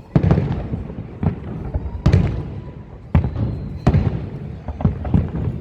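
Fireworks shells bursting in the air, a string of sharp booms about once a second, each trailing off in a low rumble.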